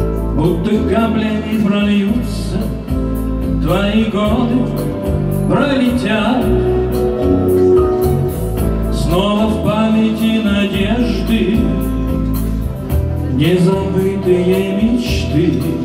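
A man sings a song in phrases of a few seconds, accompanied by strummed acoustic guitar with steady low bass notes underneath.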